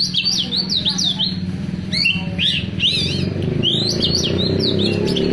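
Oriental magpie-robin (kacer) singing: quick runs of high, slurred whistled notes, one burst at the start and a second from about two seconds in. A steady low hum runs underneath.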